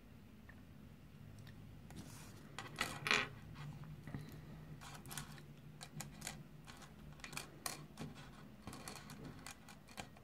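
Small plastic Kinder Surprise toy parts clicking and tapping as they are handled and snapped together, with long fingernails ticking on the plastic and the tabletop. Irregular light clicks throughout, with a louder cluster about three seconds in, over a faint low hum.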